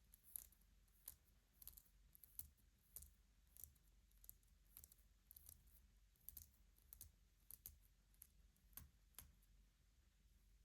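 Soft, irregular tapping and clicking on the wooden pieces of a Shut the Box game, roughly two light clicks a second.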